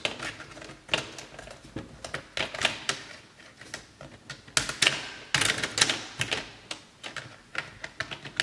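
Plastic display bezel of a Lenovo ThinkPad W540 being pried off by hand: irregular sharp clicks and snaps as its clips let go, some coming in quick clusters.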